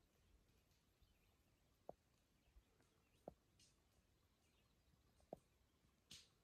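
Near silence, broken by a few faint short ticks and a brief soft hiss near the end.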